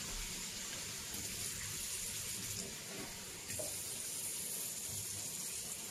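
Kitchen tap running steadily into a stainless steel sink, the stream splashing over tripe being rinsed and squeezed by hand in a plastic tray.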